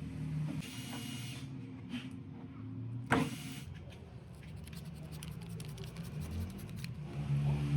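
A small electric motor humming steadily, with one sharp click about three seconds in.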